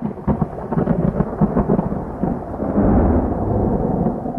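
A loud, thunder-like rumble full of crackles, swelling about three seconds in and easing off near the end.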